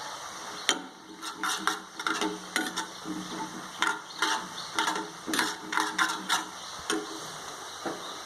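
Metal spoon stirring in a pan of ajwain seeds and water on low heat. It makes an irregular run of clinks and scrapes against the pan, a couple a second, starting just under a second in.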